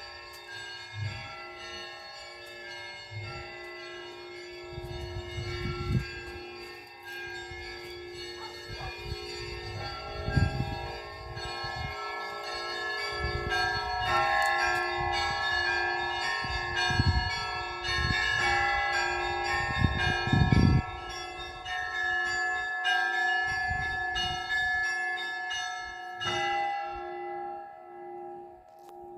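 Russian Orthodox church bells being rung together in a peal: several bells struck again and again, their tones ringing on over one another, with a few low thuds. The ringing stops near the end and the last tones die away.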